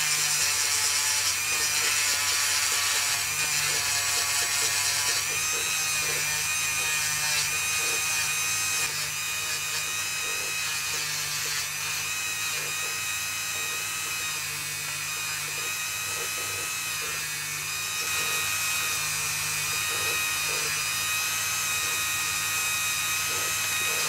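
Small rotary tool with a sanding drum running at high speed with a steady high whine as it sands a carved wooden lure body. Its pitch shifts slightly now and then.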